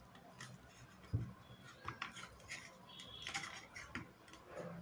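Faint handling sounds of metal tweezers and an opened LED bulb: scattered light clicks and ticks, with one dull knock about a second in.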